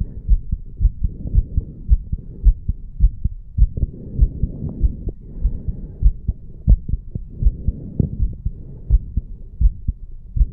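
A man's heartbeat picked up over the mitral valve area of the chest, a strong, quick, steady run of low lub-dub thumps after hard exercise. The owner takes it for healthy valves opening and closing nicely.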